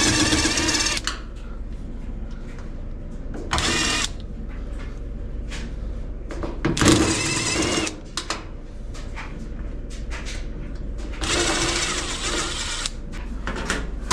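Cordless drill/driver with a Phillips bit spinning out screws from a GE electric dryer's back panel: four short runs of whirring, about a second each, the third the loudest, with light clicks of metal between.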